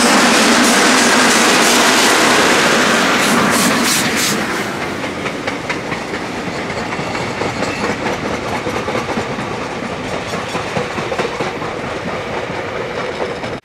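Garratt steam locomotive passing close and loud, then about four seconds in the sound drops to its passenger coaches rolling by, wheels clattering over the rail joints.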